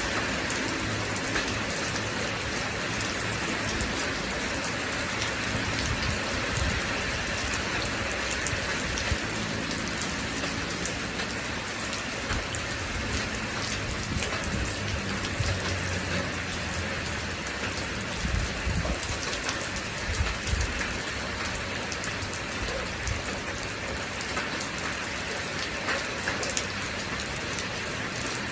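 Steady rain falling, with many sharp ticks of single drops striking close by.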